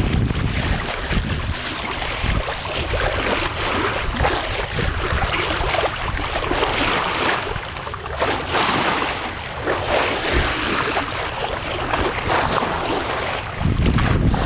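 Water rushing and splashing along a sailboat's hull as it sails, an uneven hiss that swells and eases. Wind rumbles on the microphone at the start and again near the end.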